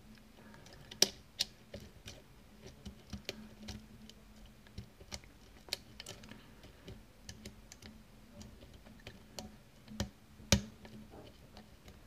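Faint, irregular clicks and ticks of a hook pick working the pin tumblers of a cheap Stabilit euro cylinder held under tension, with a sharper click about a second in and another near the end, which the picker takes for pin two setting.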